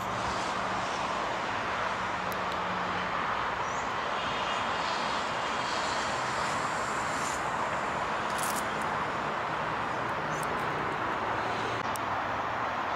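Steady roar of distant city traffic, with a faint high chirp twice.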